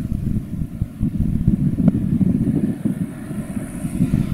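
Strong wind buffeting the microphone: a gusty, uneven low rumble that rises and falls.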